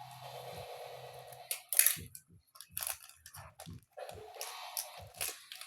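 Irregular handling noises: short rustles and clicks, the loudest a sharp crackle about two seconds in, after a steady low hum in the first second and a half.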